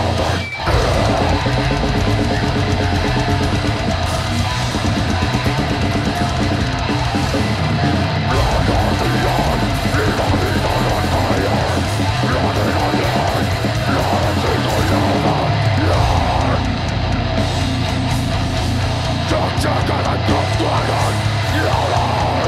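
Live heavy metal band playing loud and steady: distorted electric guitar over a pounding drum kit.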